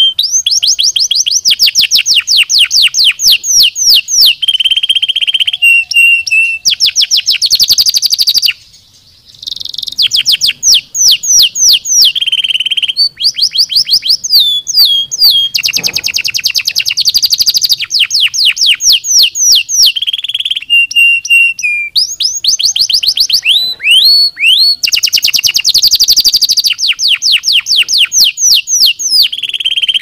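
Domestic canary singing a long, loud song of fast rolls and trills: runs of rapidly repeated sweeping notes, switching from one phrase to the next, with a short pause about nine seconds in.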